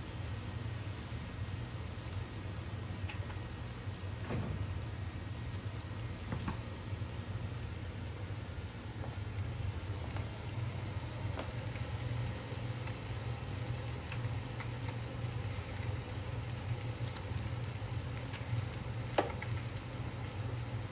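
Tilapia fillets sizzling steadily in hot oil in a pan as they are blackened, with a few faint clicks from a handheld metal lime squeezer pressing limes.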